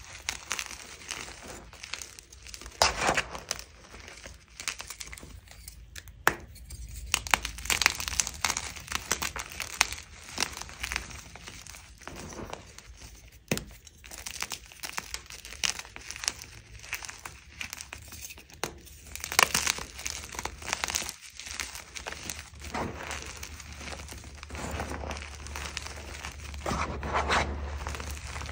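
Soft, crunchy dyed gym chalk blocks and chunks crushed and crumbled between bare hands: irregular crisp crunches and cracks amid a gritty, hissing crumble of powder.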